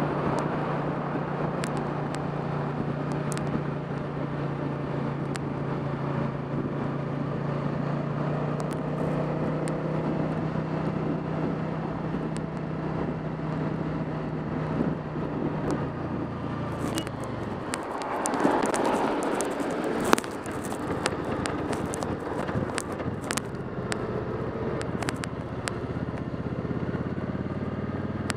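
Suzuki S50's V-twin engine running steadily at road speed over wet-road noise. About sixteen seconds in, the engine note drops as the bike slows hard, a rush of noise follows, then one sharp click, and the engine pulls again, its pitch rising.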